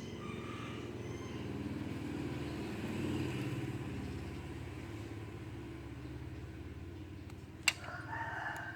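A low, steady motor rumble, like a vehicle engine running. Near the end comes one sharp click, followed by a few short, high chirping tones.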